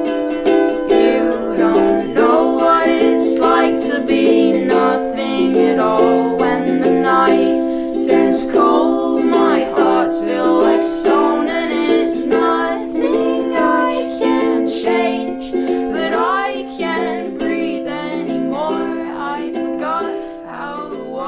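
Background song: a ukulele strumming steady chords under a singing voice, slowly getting quieter toward the end.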